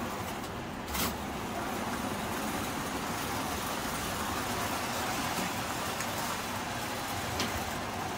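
Steady rumble of toy electric trains running on metal track, with a sharp click about a second in and another near the end.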